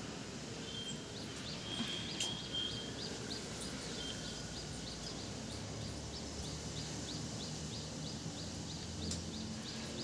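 Steady outdoor background noise. From about three seconds in, a faint high chirp repeats evenly about three times a second, and a couple of short high whistles come in the first few seconds.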